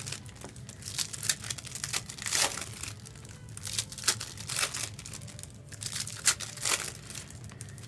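Trading card packs being opened and handled: wrappers crinkling and tearing and cards rustling in short, irregular bursts.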